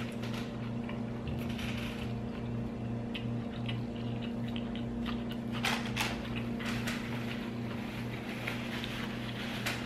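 A person chewing a mouthful of bacon cheeseburger on grilled Texas toast, with small scattered mouth clicks, over a steady low hum.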